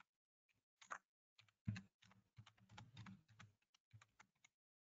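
Faint, irregular keystrokes on a computer keyboard as an email address is typed, stopping shortly before the end.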